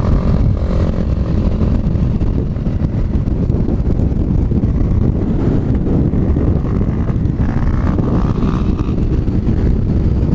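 Sport motorcycle riding at road speed, recorded on board: a loud, steady rush of wind and road noise over the bike's engine.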